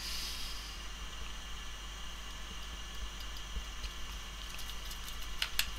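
Steady low hiss and hum of a quiet workbench while a phone and small tools are handled, with a couple of sharp light clicks near the end.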